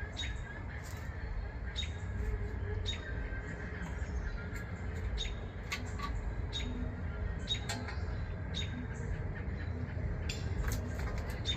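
Sharp clicks and short squeaks, irregularly about once a second, over a low rumble, as the old oil pan gasket is worked and pulled off a Chevy 350 small-block.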